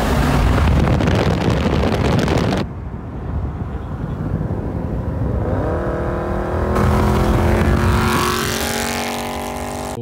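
Dodge Charger Scat Pack's 6.4-litre 392 Hemi V8 pulling hard at full throttle for about two and a half seconds, then backing off. Its revs climb again about halfway through into a second loud pull, then settle into a steadier drone near the end.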